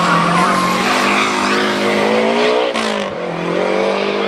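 Hillclimb race car engine accelerating hard, its pitch climbing, then dropping sharply about three seconds in and pulling again. Tyre squeal fades out over the first second.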